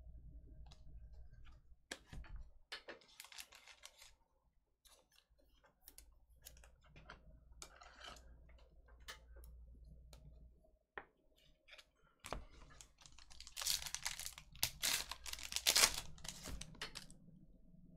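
Trading cards handled with soft clicks and slides, then, near the end, a foil pack of Bowman Sapphire baseball cards being torn open and crinkled, the loudest sound.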